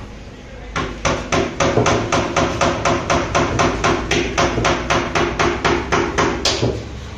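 Hammer knocking rapidly and evenly on a loudspeaker cabinet while its cover is fitted, about four blows a second. The blows start just under a second in and stop shortly before the end.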